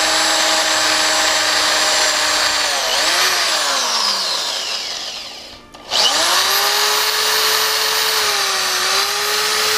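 Small handheld rotary tool spinning a rolled sandpaper cone on a mandrel against a motorcycle wheel, a steady high motor whine. About three seconds in it is switched off and its pitch falls away as it spins down; about six seconds in it is switched back on, its pitch rising to speed, and it dips slightly once near the end.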